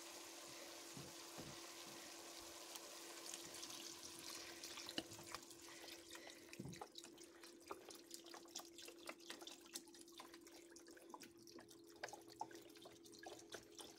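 Chicken broth poured from a carton into a hot stainless pot of sautéed chicken: faint trickling and splashing with small drips, taking over from about five seconds in from a soft steady hiss of the pot.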